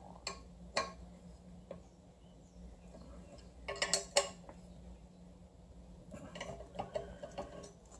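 Hex key clinking against screw heads and the aluminum starter bracket as the screws are tightened: a few separate metal clicks, a short cluster about halfway through, and a run of light ticks near the end, over a faint steady hum.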